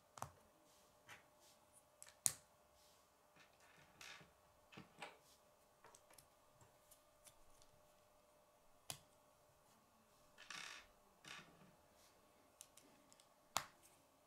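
Plastic K'nex gears, rods and connectors clicking and snapping as they are fitted together by hand: scattered light clicks, a few sharper snaps (the loudest about two seconds in and again near the end), and a brief rustle of handling a little past ten seconds.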